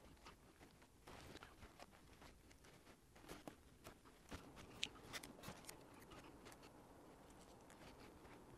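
Near silence: faint room tone with scattered soft clicks and scratchy ticks, the clearest about five seconds in.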